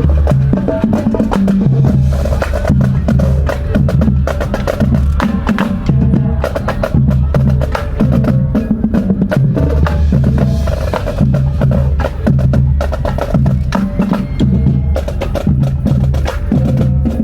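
A high-school wind and marching band playing loudly, carried by drums and percussion: quick, sharp strikes over a low, stepping bass line.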